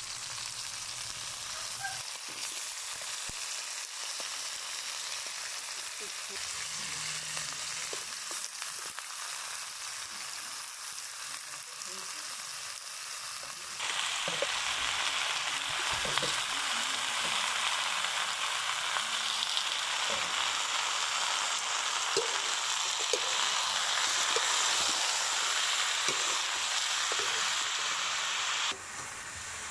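Frog meat sautéing in hot oil with garlic, onion and ginger in a metal wok: a steady sizzle with scattered scrapes and clicks of a metal spatula. About halfway through the sizzle suddenly grows louder, and it drops back near the end.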